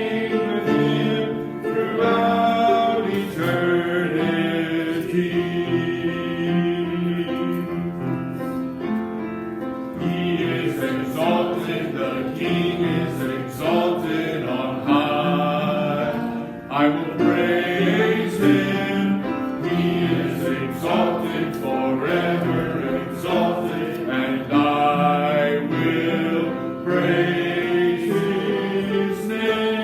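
Church congregation singing a hymn together.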